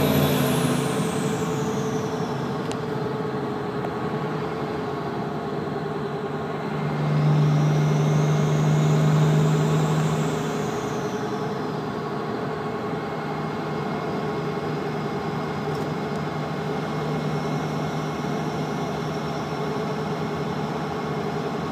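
12-valve Cummins 5.9 inline-six turbo diesel pulling, heard from inside the cab with the windows up, with the third-gen turbo's high whistle over the engine. The whistle falls away at the start, rises again with the engine as it pulls harder about seven seconds in, falls off after about three seconds, then holds lower and steadier.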